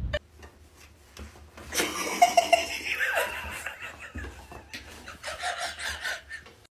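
A person laughing in a small room, on and off.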